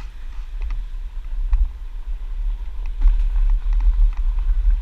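Heavy wind rumble on the microphone of a bike ridden fast, with scattered clicks and rattles from the tyres and frame running over boardwalk planks and then gravel. It gets a little louder about three seconds in.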